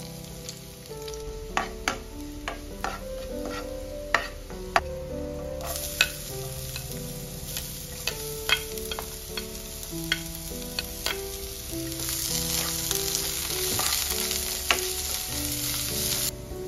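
Garlic, sliced onion and chillies frying in hot oil in a metal frying pan, with sharp taps and scrapes of a wooden spatula as the ingredients are tipped in and stirred. The sizzle grows louder after about six seconds and is strongest near the end.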